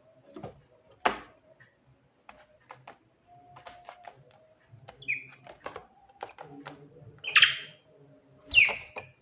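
Javan myna calling: short harsh notes, loudest about a second in and twice near the end, with a brief whistled note around the middle and scattered small clicks between.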